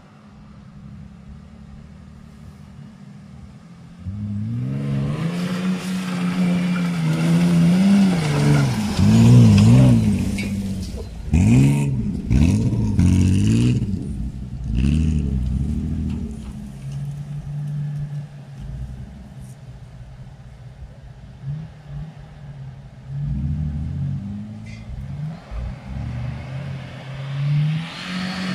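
Nissan Terrano's engine pulling off-road. It runs steadily at first, then after about four seconds it revs hard, rising and falling repeatedly as the 4x4 works over rough ground, with a few sharp knocks in the middle. It then settles to a steadier lower note broken by short revs, and revs up again near the end as it climbs a steep slope.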